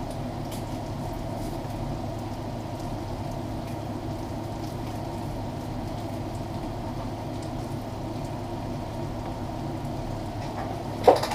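Stew pot of beef chunks boiling steadily in their juices, a constant bubbling. A short, sharp, louder sound comes near the end.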